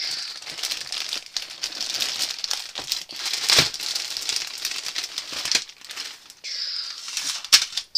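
Packaging crinkling and rustling as a laptop is pulled out of its wrapping, with many small crackles and a louder one about three and a half seconds in.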